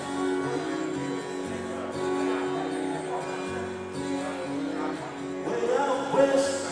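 Live acoustic guitar music played over steady sustained backing chords, with a bass line stepping from chord to chord. A voice comes in about five and a half seconds in.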